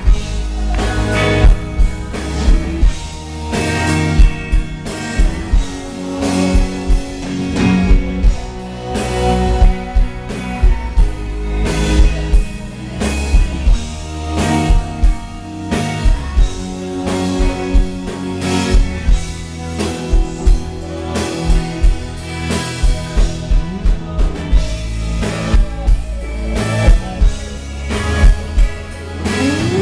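Live rock band playing: two electric guitars over a drum kit with a steady kick-drum beat, and a woman singing lead.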